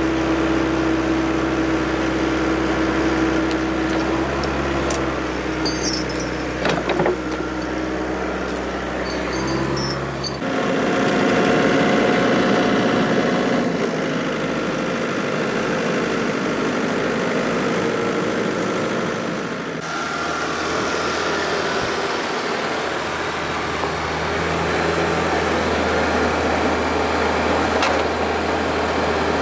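Diesel engine of compact heavy equipment running steadily, its sound changing abruptly about ten and twenty seconds in.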